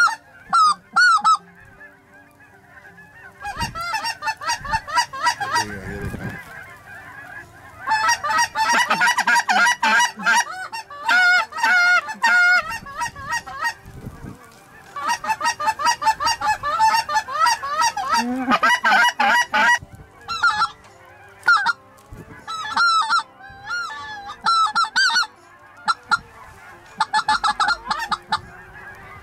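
A large flock of Canada geese honking as they fly overhead, many birds calling at once in waves that swell and ease off every few seconds.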